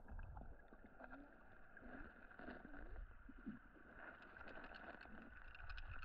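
Faint river water heard from a raft, with a few small knocks.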